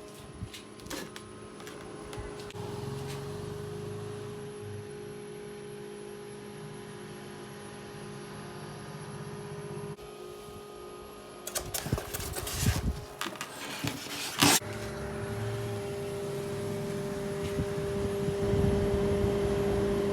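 Small electric fan or motor running with a steady hum. A cluster of knocks and clatter comes between about twelve and fifteen seconds in.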